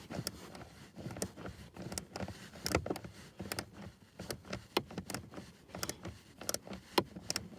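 Scattered, irregular clicks, taps and knocks of hand tools and plastic trim being handled under a truck's dashboard, a few louder knocks among them.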